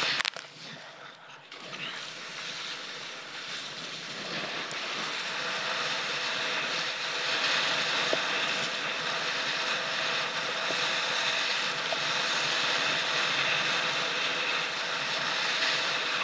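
Kiteboard planing over choppy water: a steady rush of spray and chop against the board, with wind buffeting the microphone. The rush drops away for about a second near the start, then builds back and stays steady.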